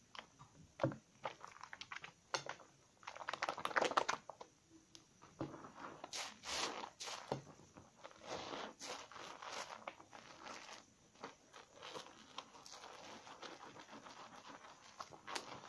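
Hands lathering a slightly soaked bar of 72% laundry soap with a foam sponge: uneven wet squishing and rubbing with the crackle of foam bubbles, busiest in the first half.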